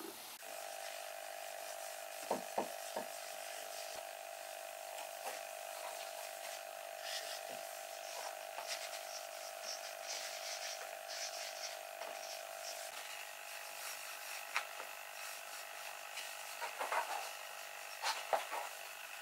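A cloth rubbing wax oil into pine boards, with a few light knocks of wood, over a quiet steady hum.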